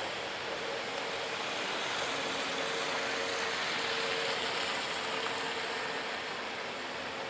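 Heavy rain hissing steadily, with a vehicle engine running underneath as a faint tone that comes and goes.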